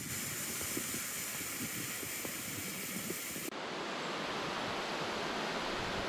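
Steady rush of a waterfall and creek. About halfway through it turns suddenly duller, losing its top hiss.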